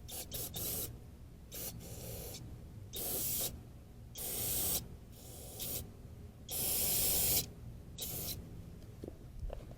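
Aerosol brake cleaner sprayed in a series of short bursts, the longest and loudest lasting about a second near seven seconds in, to clean oily engine parts.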